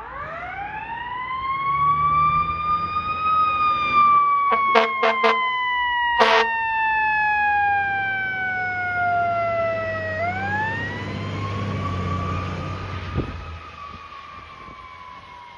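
Fire engine siren winding up to a high wail, sliding slowly down, then winding up again about ten seconds in. Three quick air-horn blasts and a longer one come about five to six seconds in. Under them is a low truck-engine rumble, and the whole thing fades near the end as the engine passes.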